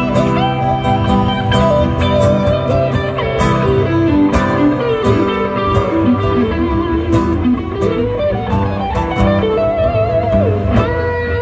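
Two guitars playing a blues-flavoured instrumental passage live: a lead line with bent, sliding notes over steady rhythm chords.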